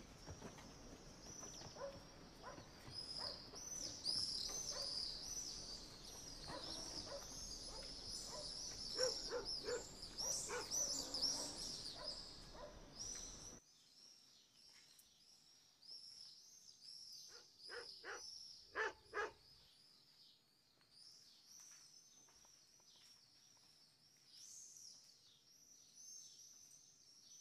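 Faint birdsong, many short high chirps, over quiet village ambience, with a donkey's hooves clopping on the street in the first half. About 13 seconds in the background turns suddenly quieter and the chirps fainter, and a few sharp knocks come a few seconds later.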